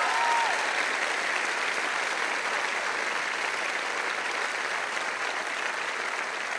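A large crowd of thousands applauding, a steady dense clapping that eases off slightly near the end, with a brief whistle or call right at the start.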